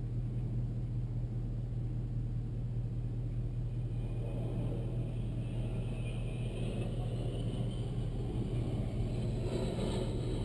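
Steady low drone of an idling vehicle, heard from inside its cabin. A faint jet rises and falls about halfway through as a large air tanker passes low over the fire.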